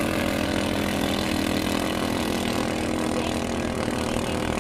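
Engines of racing bancas (motorized outrigger race boats) running flat out across the water, a steady high-revving drone.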